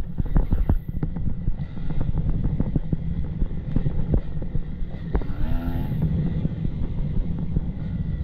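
Enduro motorcycle riding over rough off-road ground: the engine runs under throttle with many short knocks and clatter, and wind buffets the microphone.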